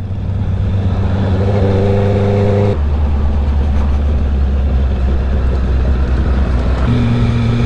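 Honda CB650R inline-four with an aftermarket R11 full exhaust, running under way. Its steady note steps down abruptly about three seconds in and steps back up near the end.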